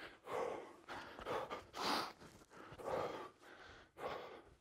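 A man breathing hard from exertion, with about five heavy breaths roughly one a second.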